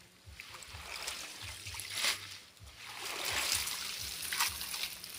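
A cast net being hauled out of the water, with splashing and water streaming and dripping off the mesh; sharper splashes stand out about two seconds in and again near the end.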